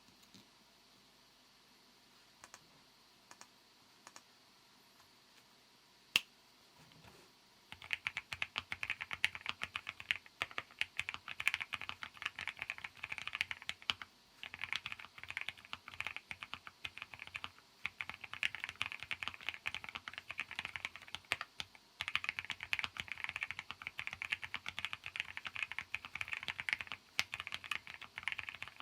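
Typing on a SEA 75 custom mechanical keyboard: a few single key presses, then from about eight seconds in fast continuous typing, broken by two brief pauses.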